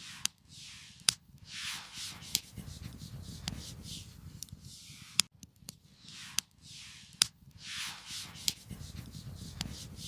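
Campfire crackling, with sharp irregular pops and snaps over a soft hiss that swells and fades every couple of seconds.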